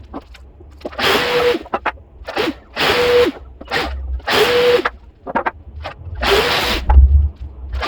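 Power drill run in four short bursts under a second each, its motor whine rising as the trigger is pulled and dropping as it is released, with small knocks of handling between bursts.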